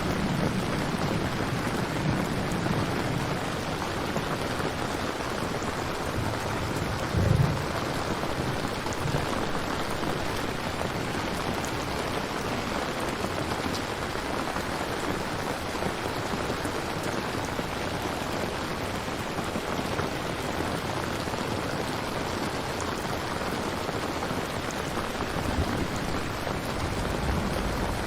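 Steady rain falling, an even hiss of rain with no let-up, with a brief low thud about seven seconds in.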